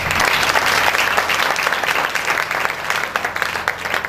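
Audience applauding: many hands clapping at once, fullest at the start and easing off a little toward the end.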